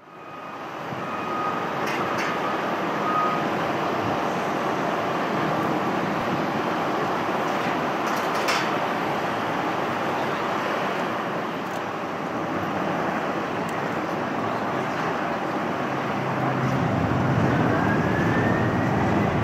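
Jet engines of a Boeing 767-300 airliner running while it taxis, a steady rush of jet noise. Near the end a whine rises in pitch and a low hum builds as the engines spool up for takeoff.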